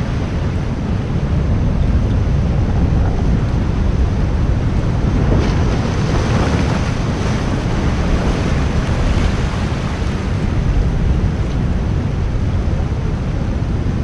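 Steady rush of heavy surf on a rocky shore, with strong wind buffeting the microphone.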